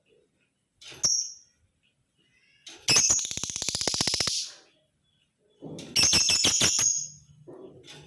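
Male lovebird calling: a sharp chirp about a second in, then a long rapid rattling chatter that lasts over a second, and another burst of quick chirps near the end.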